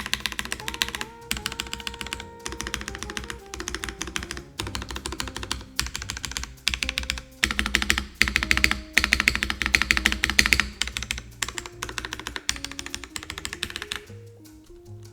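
Fast typing on a custom mechanical keyboard with Cherry Hyperglide Black linear switches on a polycarbonate plate, top-mounted with no foam, and GMK Iceberg doubleshot ABS keycaps: rapid runs of keystrokes broken by short pauses. Background music plays underneath.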